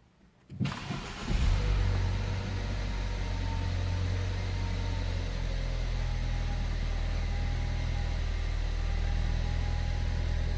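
Ford Focus ST3 engine starting about half a second in: a short crank, a flare of revs as it catches, then a steady idle. It now starts and runs, the no-start problem fixed.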